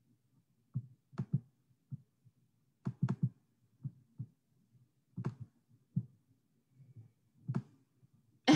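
Irregular soft clicks and low thuds, sometimes in pairs, from working a computer's mouse or trackpad and bumping the desk while trying to get a video shared.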